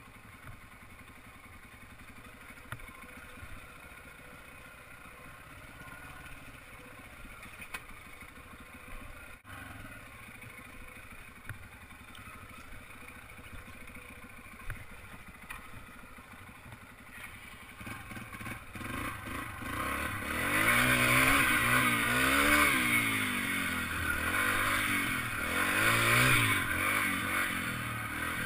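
Yamaha TT-R dirt bike's four-stroke single-cylinder engine running low and steady on the trail, then louder from about two-thirds of the way in, revving up and down repeatedly as the throttle is worked.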